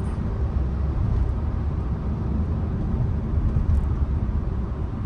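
Steady low rumble of road and engine noise from a 2011 Renault Samsung SM3 being driven at an even pace.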